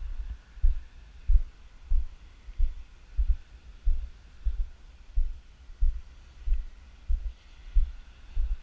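Low, evenly spaced thuds at walking pace, about three every two seconds: footsteps jarring a handheld camera as it is carried along. A faint steady hiss sits underneath.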